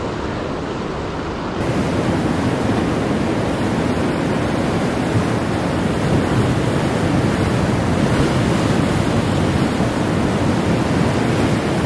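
Steady rush of surf on a rocky shore mixed with wind on the microphone, growing louder about a second and a half in.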